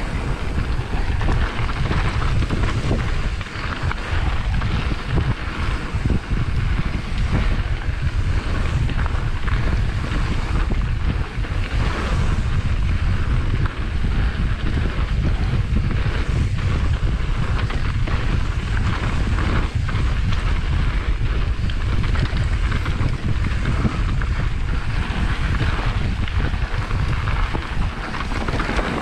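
Wind buffeting the microphone while riding a mountain bike at speed, a steady loud rush with tyre and trail rumble underneath and scattered short knocks and rattles from the bike over rough ground.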